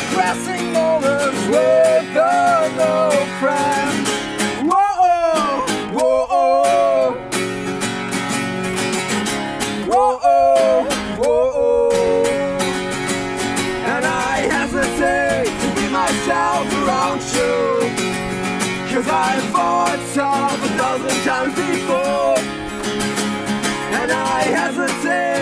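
Two acoustic guitars playing an instrumental passage of an acoustic punk song: steady strummed chords with a moving melody line over them.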